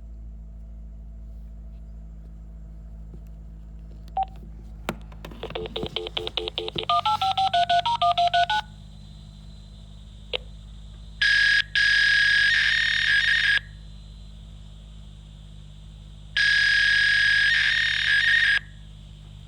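A phone dialing a number with a quick run of keypad tones, then a fax machine answering the call with two loud, high-pitched handshake tones about two seconds each, over a steady low line hum.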